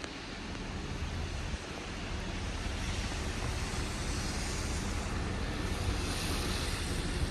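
Storm wind buffeting the microphone in a heavy snowstorm: a low rumble with a hissing rush that swells over the last few seconds.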